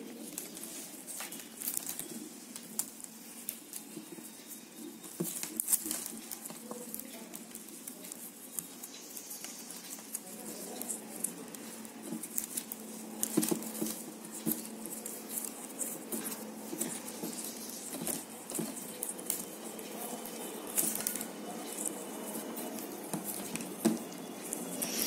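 Plastic basket-weaving wire crinkling and clicking as it is pulled by hand through knots and tightened, in a scatter of small irregular clicks.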